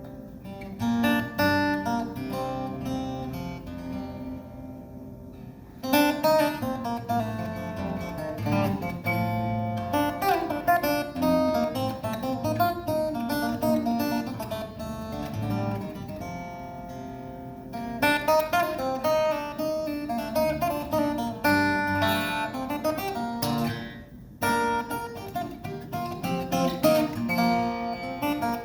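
Acoustic guitar played live, plucked notes and chords. It softens a few seconds in and again a little past the middle, then comes back louder each time.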